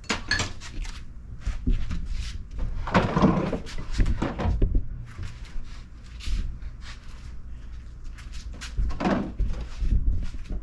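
Knocks, clicks and clatter of parts being handled and set down, with louder bursts of scraping and clunking near the start, around three seconds in and again near nine seconds.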